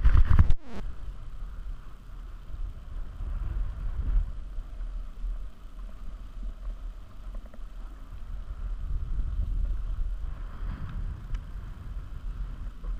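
Steady low rumble of wind on an action camera's microphone while being towed uphill over snow on a drag lift, with a few knocks of camera handling in the first half second.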